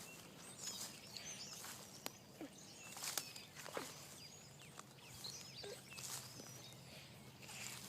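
Faint chatter of a flock of small birds: many short, high chirps and whistles overlapping, with a few soft rustles of steps in between.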